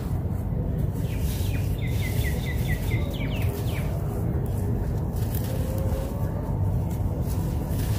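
Dry sand-cement and dirt crumbles pouring from a hand onto a gritty pile, with faint crackling as the grains and crumbs land, over a steady low rumble. A bird chirps a quick run of about eight short falling notes between about one and a half and three and a half seconds in.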